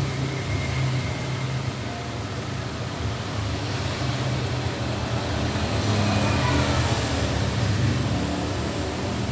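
A steady low mechanical hum under an even rushing noise, rising a little in loudness past the middle.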